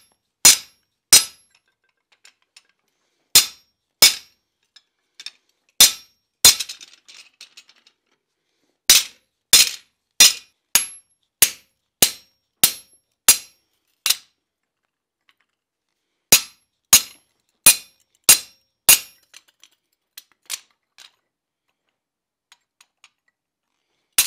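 Hammer blows on a hand-held hot chisel of Atlantic 33 (Flutagon) tool steel, cutting into a red-hot steel bar on an anvil. The blows are sharp and ringing, about one or two a second, in short runs with pauses between.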